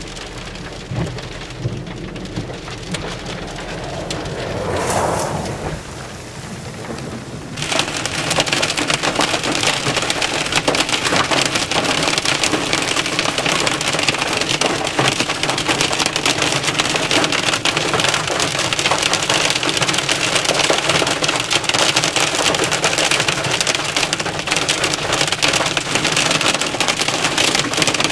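Rain falling, with the swish of a vehicle passing on the wet road about five seconds in. Then, suddenly, a loud, dense drumming of hail and heavy rain pelting the chase vehicle's roof and windshield, many small ticks on top of the roar, as the storm's hail core arrives.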